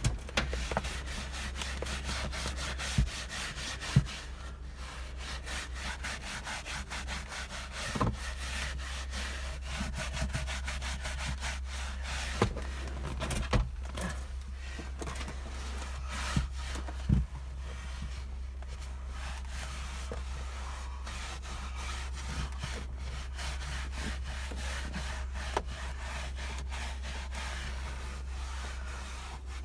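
Car carpet being scrubbed with a brush, rapid back-and-forth rubbing strokes, with a few sharper knocks along the way. A steady low hum runs underneath.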